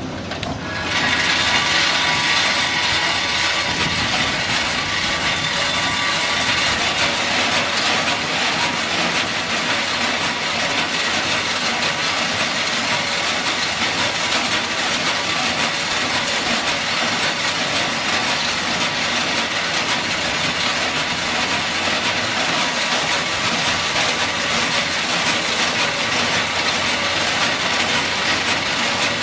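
Peanut vibrating feeder switched on about a second in, then a steady, dense rattle of raw peanuts shaking along its steel tray and dropping from the hopper, over the hum of the running machinery.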